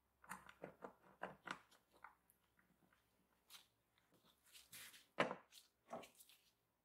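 Quiet clicks and taps of small hardware being handled: gloved hands seating a metal suitcase handle and its brass-coloured hinge plate against the wood and setting a small screw in it. There are a run of light clicks at the start and a louder click about five seconds in.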